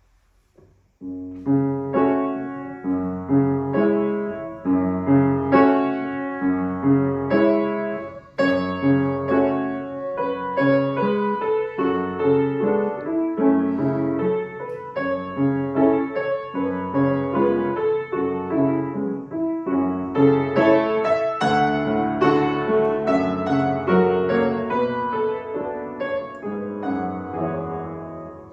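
Piano playing a slow, lyrical melody over a repeating bass accompaniment, beginning about a second in with a brief pause in the phrasing near eight seconds.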